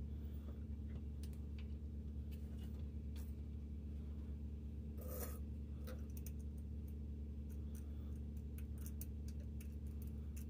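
Faint clicks and scrapes of small metal screws being turned by hand into a metal Cordage card, the clearest scrape about five seconds in, over a steady low hum.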